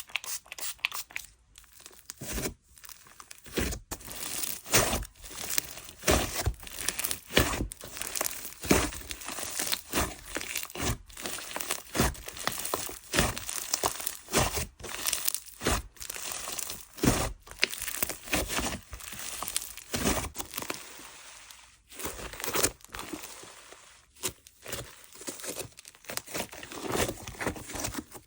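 Hands kneading, stretching and pressing a butter-fizz textured slime, giving dense, irregular crinkly crackles and squishes with short pauses between handfuls.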